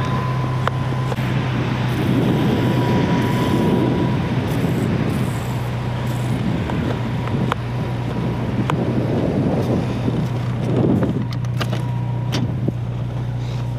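Jeep Wrangler engine idling steadily, with spells of hiss from a hand-pumped foam sprayer misting cleaner onto the body.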